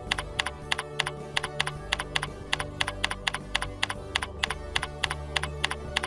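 Typing on a computer keyboard: a steady run of keystrokes, about five a second, that stops shortly before the end, with faint background music underneath.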